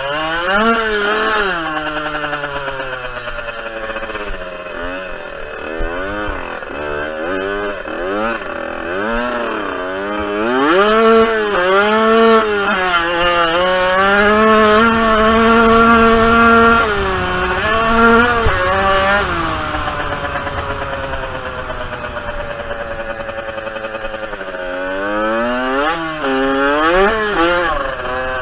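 Kawasaki KX65's small two-stroke single-cylinder engine heard from the bike while it is ridden, revving up and down over and over as the rider works the throttle and gears. About halfway it is held at high revs for a few seconds, then eases off to a lower, steadier note before revving up and down again near the end.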